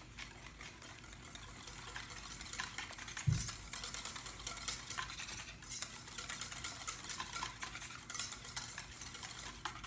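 Wire whisk stirring a thick mayonnaise dressing in a stainless steel bowl, the wires scraping and clicking steadily against the metal. One low thump a little over three seconds in.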